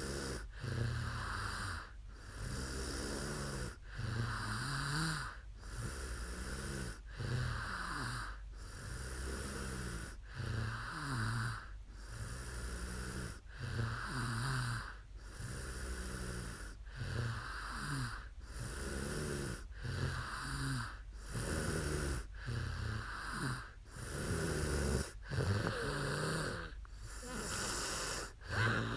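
A sleeping woman snoring steadily, a snore about every one and a half seconds with brief pauses between them.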